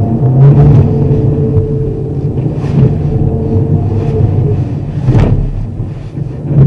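Car's engine and tyres making a loud low rumble heard from inside the cabin as the car slides on snow under hard acceleration, wheels slipping with traction control switched off. Several sharp knocks cut through it, the loudest about five seconds in.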